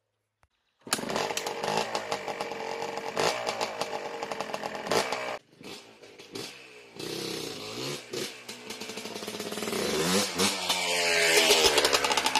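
Yamaha Blaster's 195cc two-stroke single-cylinder engine revving up and down as the quad is ridden. It starts about a second in, drops off briefly about five seconds in, and grows louder toward the end.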